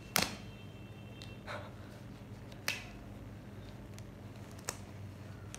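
Surgical gloves snapping as they are pulled on and stretched over the hands: a few sharp snaps, the loudest just after the start, with softer rustling of the gloves between them. A steady low room hum runs underneath.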